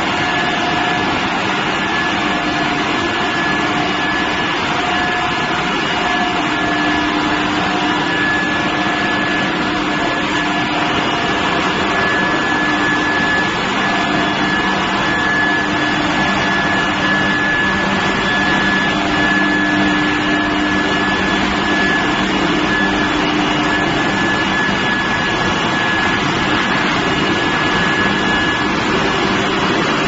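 Steel-billet induction heating furnace line running: a steady, loud machine noise with a constant high-pitched whine and a lower hum under it.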